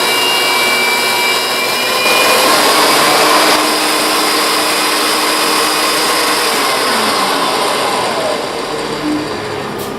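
Jointer running as rough boards are face-jointed, a little louder for about a second and a half around two seconds in; from about seven seconds in the motor winds down with a falling whine.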